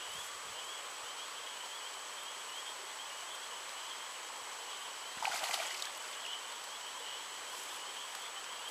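Steady outdoor background noise with a continuous high, wavering trill. About five seconds in comes a brief splash of water as a released bass swims off.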